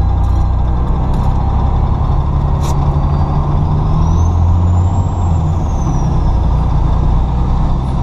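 Diesel engine of a 2003 Pierce Dash fire truck running as the truck rolls slowly, a loud steady low rumble. A brief sharp click comes about two and a half seconds in, and a faint high whine rises and falls near the middle.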